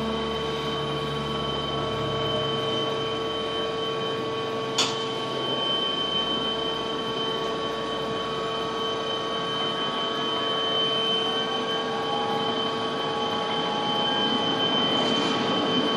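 Container crane machinery running while the crane and spreader move: a steady mechanical hum with several steady whining tones. A low rumble fades out in the first few seconds, and a single short, sharp high squeak comes about five seconds in.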